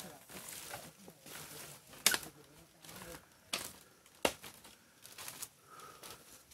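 Footsteps crunching and scuffing on a leaf-strewn dirt trail, with a few sharp clicks at irregular intervals.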